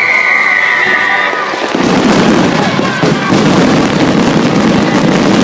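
Fireworks going off: a falling whistle fades out in the first second or so, and from about two seconds in a loud, dense crackle and rumble from the bursts fills the rest.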